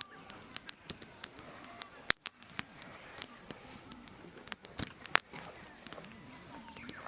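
Wood bonfire crackling: irregular sharp pops and snaps, the loudest about two seconds in and again around five seconds.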